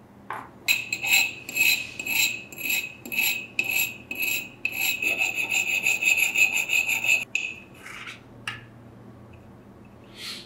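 Steel pincer jaw rubbed back and forth on a wet sharpening stone, making rhythmic metallic scraping strokes. The strokes come about two a second, grow quicker from about halfway, then stop a little after two-thirds of the way through, with a few light scrapes after.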